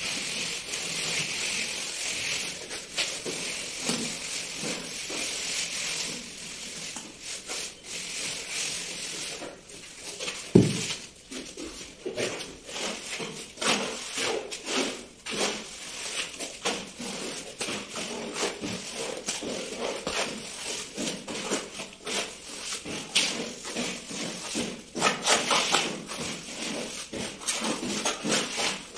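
Plastering trowel scraping and smoothing wet cement plaster on a wall in repeated strokes, with a sharp knock about ten seconds in.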